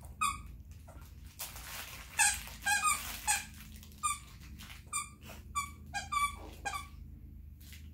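A plush fox toy's squeaker squeaking in short, repeated squeaks as an Akita puppy bites and chews it, quickest in a cluster a couple of seconds in, then more spaced out, stopping about a second before the end.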